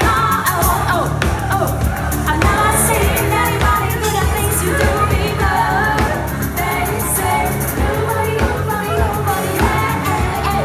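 Live band of drums, bass, electric guitar and keyboards playing an upbeat pop song through a PA, with singing over it, captured raw on a phone in the room.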